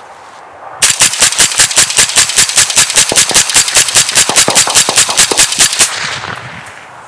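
AR-15 rifle fired rapidly in semi-automatic: about two dozen shots at about five a second for some five seconds, starting about a second in, with a fading echo after the last shot.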